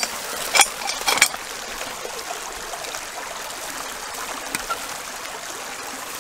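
Small creek trickling steadily, with a couple of sharp metal clicks about half a second and a second in from the steel T-post puller's jaw catching on the T-post.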